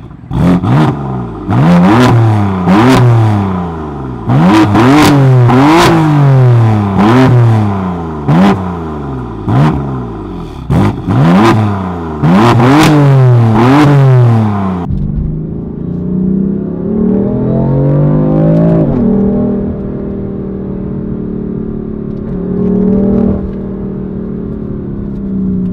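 BMW M4's twin-turbo straight-six on its stock exhaust, revved in about a dozen quick blips, with sharp crackles among them. About 15 seconds in, the sound changes abruptly to a quieter, steadier engine note with one slow rise and fall in revs.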